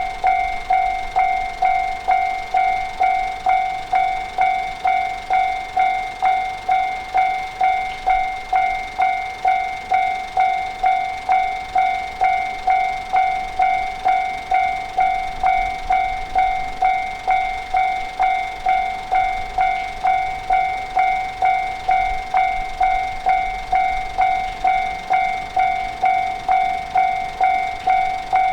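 Japanese railway level crossing warning alarm ringing steadily, a clanging 'kan-kan' tone repeating about twice a second.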